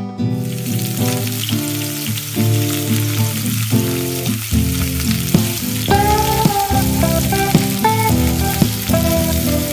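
Hot tadka of oil with dried red chillies and curry leaves poured onto yellow daal, sizzling. The sizzle starts suddenly as the oil hits the daal and then runs on steadily. Guitar music plays underneath.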